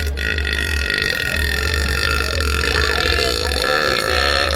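A woman's single long, unbroken burp at a steady pitch.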